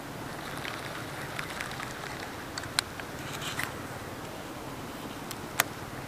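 Sharp clicks and small ticks from a baitcasting rod and reel being handled, over a steady outdoor hiss. There are two clear clicks, the louder one near the end.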